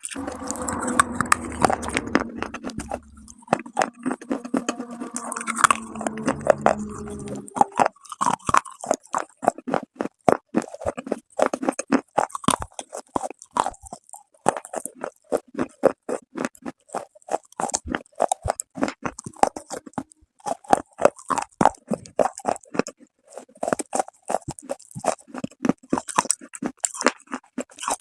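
Close-miked crunching and chewing of hard baked clay: a fast, dense series of sharp crunches as pieces are bitten and ground between the teeth.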